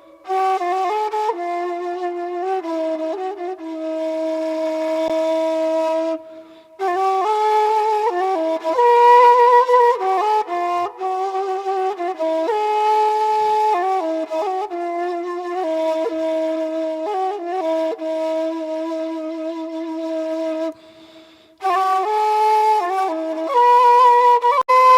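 Background music: a solo flute-like wind instrument playing a slow melody of long held notes, with two short breaks, about a quarter of the way in and near the end.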